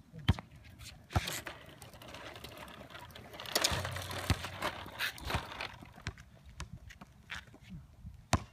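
Plastic wheels of a toddler's push walker rolling and rattling over concrete, with scattered sharp clacks and knocks from the toy.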